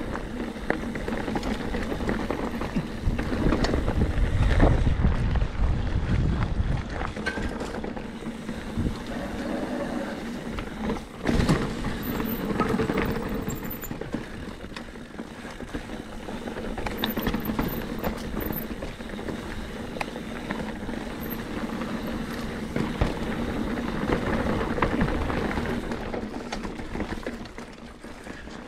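Mountain bike ridden over a rocky trail: tyres rolling over rock and gravel, with frequent knocks and rattles from the bike and a sharp bang about eleven seconds in. Wind rumbles on the microphone a few seconds in.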